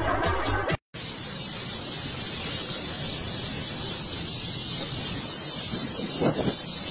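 Dance music that cuts off about a second in, then a huge crowd of ducklings peeping all at once in a dense, steady, high-pitched chorus.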